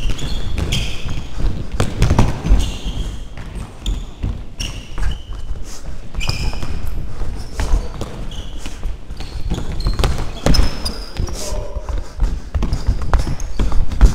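Indoor football game in a sports hall, heard from a chest-mounted camera on a running player: many short high squeaks of sneakers on the hall floor over a steady run of footfalls and thuds from the ball.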